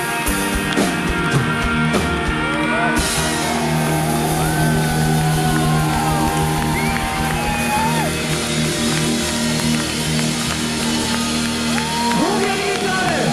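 Live rock band playing, with electric guitar holding long chords and voices singing and shouting over the music.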